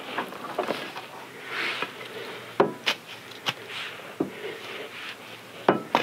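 Sharp knocks of wood and iron with some rubbing and scraping as the sawmill's wooden carriage and headblock are shifted by hand. There are three clear knocks around the middle and one near the end.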